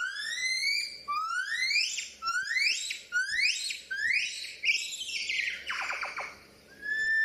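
Baboon calling: a run of high-pitched rising squeals, about one every 0.7 seconds, the later ones rougher. After a short pause near the end comes a longer level call that begins to fall.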